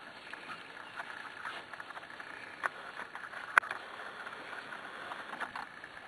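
Pembroke Welsh corgi puppies moving about: faint shuffling with scattered light taps and clicks, one sharper click about three and a half seconds in.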